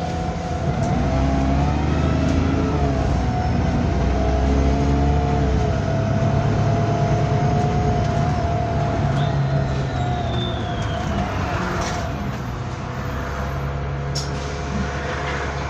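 Bus 27244 running under way, its engine rumble swelling about two seconds in and easing off from about ten seconds, under a steady, slightly wavering high whine: the weird noise this bus makes.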